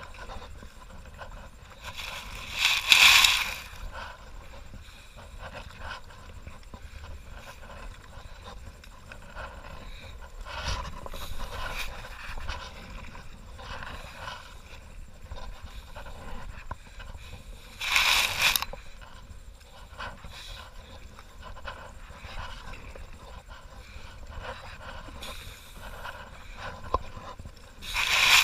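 A sit-on-top kayak being paddled on a slow river: soft paddle strokes and water noise, with three louder short noises about three seconds in, about eighteen seconds in and at the very end, over a steady low rumble.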